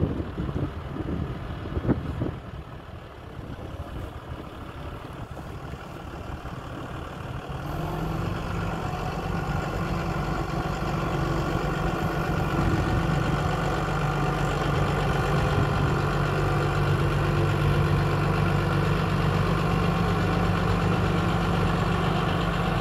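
2007 New Holland TM130 tractor's six-cylinder diesel engine idling steadily, growing louder about a third of the way in and then holding.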